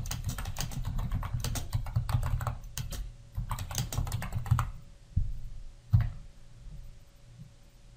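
Typing on a computer keyboard: a quick, uneven run of keystrokes for about four and a half seconds, then two separate key presses, the second and loudest about six seconds in.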